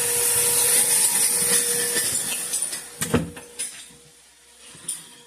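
Power tool running as a bathroom floor is torn up, with a steady hum and a harsh hiss, cutting off about three seconds in with a sharp knock, followed by a few faint clicks and knocks.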